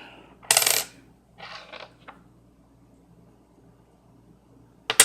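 Loose nickels clinking as they are picked through by hand: a bright jingle about half a second in, a softer shuffle of coins just after, then a single sharp click near the end.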